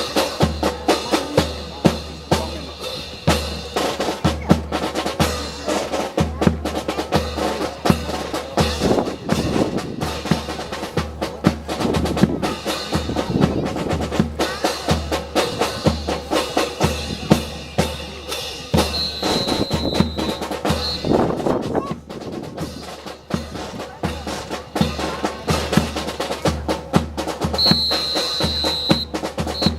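Marching percussion section playing a drum cadence: snare drum rolls and rimshots over a regular bass drum beat. Two brief high steady tones sound, one about two-thirds of the way through and one near the end.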